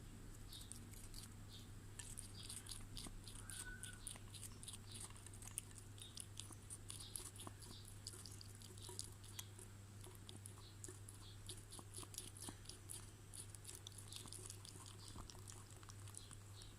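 Guinea pig chewing and crunching food: quiet, rapid crunching clicks, several a second, over a faint steady low hum.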